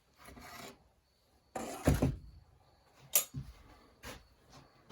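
Scattered knocks, clicks and rustles of chainsaw parts and tools being handled, with a sharp click a little after three seconds in.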